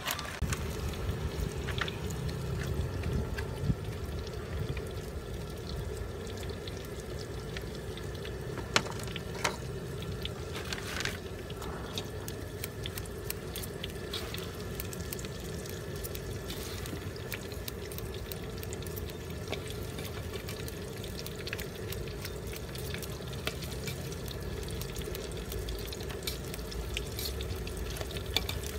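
Scissors snipping tipat rice cake and fried tofu on paper wrappers: scattered short, sharp clicks over a steady hiss and low hum.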